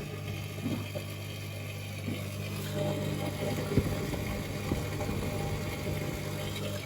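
Monoblock water pump's electric motor running with a steady mains hum and a few sharp knocks, then cutting off at the end; the noise comes from its impeller, which is cracked.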